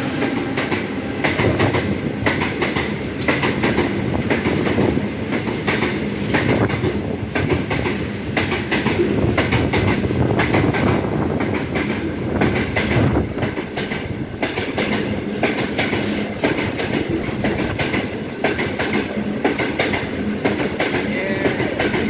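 A long Indian Railways freight train of covered boxcars rolling past at speed. It makes a steady rumble of steel wheels on rail with a rapid run of clicks as the wheels cross the rail joints.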